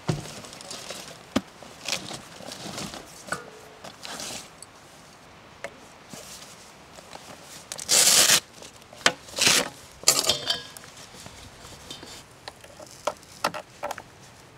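Clicks, knocks and light clinks of a heater's gas hose and fittings being handled and connected. There are a few brief loud rushes of noise about eight to ten seconds in.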